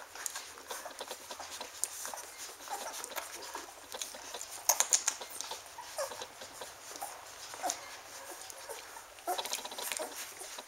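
Standard poodle puppies suckling at their mother: a run of small sucking and smacking clicks, with a louder cluster about halfway through and a few brief squeaks.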